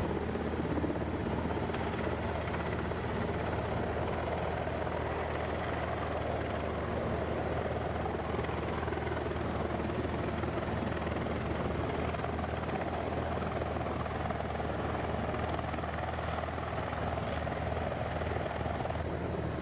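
Helicopter running steadily, a constant rotor and engine drone with no change in level.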